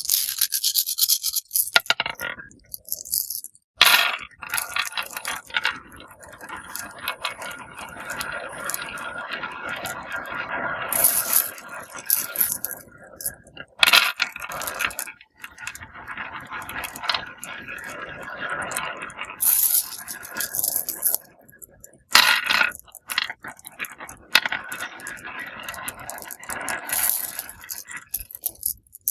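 Many marbles rolling down marble-run slopes with a continuous rattling, scraping roll, broken by sharp clicks and several louder clacks as they strike track pieces and drop.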